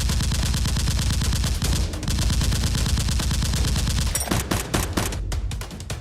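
Rapid automatic gunfire: an unbroken burst of fast shots for about four seconds, then scattered separate shots near the end.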